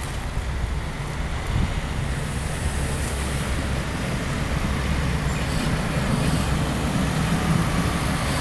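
Diesel engine of an Uerdingen railbus running as the railcar approaches slowly, a low rumble that grows gradually louder as it comes nearer.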